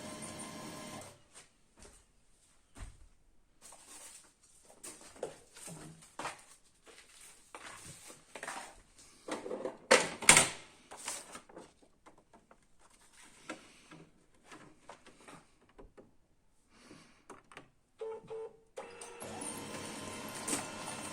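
Canon i-SENSYS MF4410 laser printer, fitted with a replacement 24 V DC main motor (RM1-7624), running a test cycle. Irregular clicks, clunks and short bursts of gear and roller noise sound as the mechanism starts and moves paper, with the loudest clatter about halfway through. A steady running hum comes in near the end.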